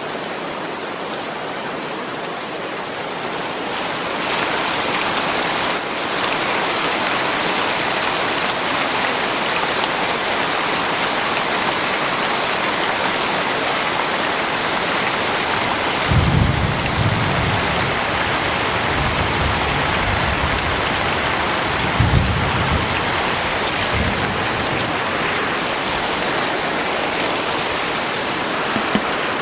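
Heavy rain pouring steadily, growing heavier about four seconds in. Deep low rumbles come in about halfway through and again briefly later.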